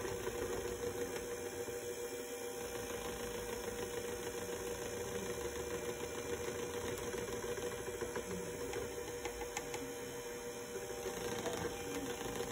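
Electric hand mixer running at a steady speed, its two beaters whisking milk and cream in a plastic tub, with a constant motor hum.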